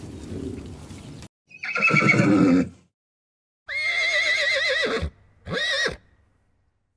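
Horse whinnying: a rough call about two seconds in, then a long, quavering whinny that drops off at the end, and a shorter one right after.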